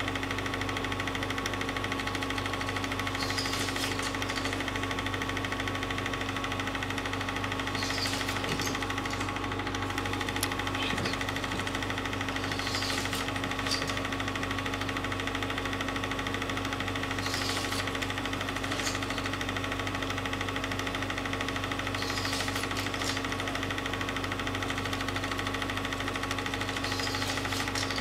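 Film projector running: a steady mechanical hum and clatter, with a short soft hiss returning about every four to five seconds.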